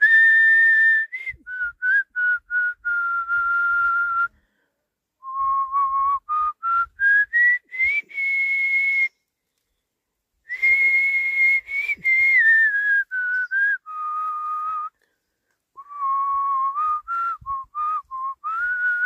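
A person whistling a melody in four phrases of a few seconds each, with short pauses between them. The notes step up and down and some are held.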